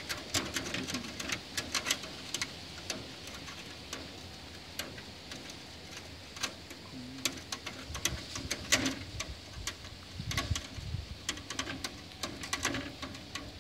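Irregular sharp clicks and scratches of a kitten's claws catching on a window's mesh screen as it climbs and clings to it.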